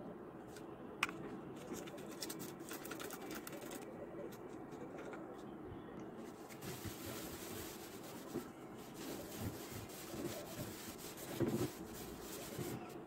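A trigger spray bottle of glass cleaner squirts several short hissing sprays onto a glass cabinet door, starting with a click about a second in. A cloth then rubs across the glass near the end.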